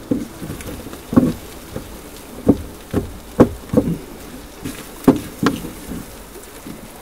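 A spatula knocking and scraping against a frying pan as corned beef hash is stirred and turned, with several irregular knocks spaced unevenly. A steady frying hiss runs underneath.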